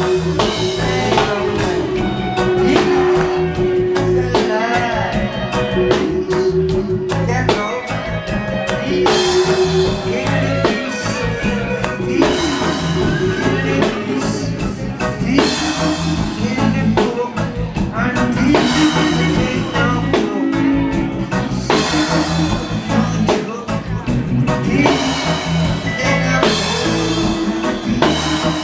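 Live reggae band playing, with a steady drum beat and a repeating deep bass line, and a man singing over it into a microphone.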